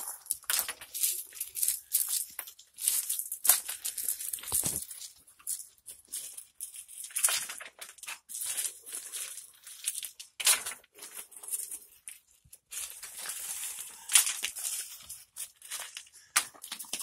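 Irregular crunching and scraping, a jumble of short rough strokes at uneven intervals, with no steady machine rhythm.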